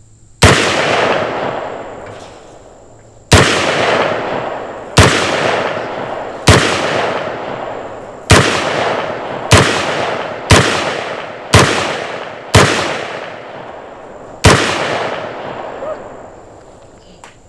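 Ten single shots from a short-barrelled AR-15 pistol (MK18-style), fired at an uneven pace with gaps of about one to three seconds. Each shot is a sharp crack followed by a long echo that dies away over a second or two.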